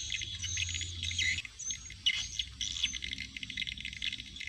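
Small birds chirping and twittering in a dense, continuous chorus, with a low hum underneath that stops about a second and a half in.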